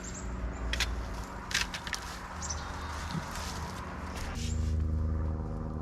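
Hands rustling and crackling through hay mulch and soil while digging out potatoes, with a few short crackles in the first two seconds. Under it runs a steady low droning hum that gets louder about four and a half seconds in.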